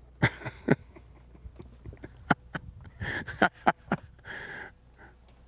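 Irregular sharp knocks and scuffs of shoes and hands on bare rock as someone clambers up a rocky bank, about ten in a few seconds, with one short rasping scrape about four seconds in.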